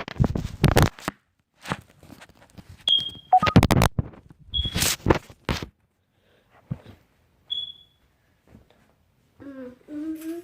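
Irregular knocks and thumps with three short, high beeps spaced a couple of seconds apart, then a child's voice singing near the end.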